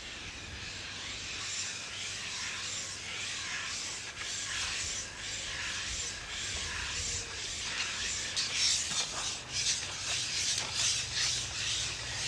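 Glass plate being ground against another glass plate with wet carborundum grit: a steady gritty rasping in back-and-forth strokes, which become more distinct in the second half. This is the graining of glass plates to a matte surface for collotype printing, so that the light-sensitive layers will adhere.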